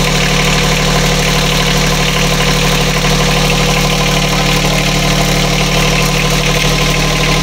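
Brand-new Yanmar 3YM30 three-cylinder marine diesel idling steadily in a sailboat's engine compartment, freshly installed and running.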